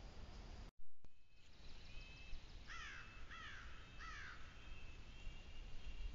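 A bird gives three descending calls in quick succession, with fainter high thin calls in the background. The sound breaks off briefly about a second in.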